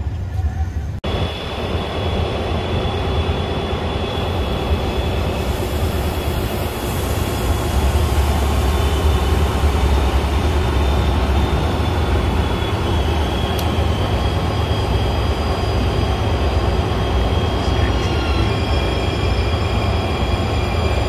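San Diego Trolley light-rail cars moving past close by: a steady rumble of the cars and wheels with a high, steady whine over it, a little louder from about eight seconds in.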